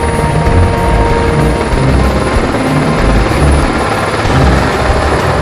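Super Puma military helicopter flying low overhead with a load slung beneath it: loud, steady rotor and twin-turbine noise with a low, pulsing rotor beat.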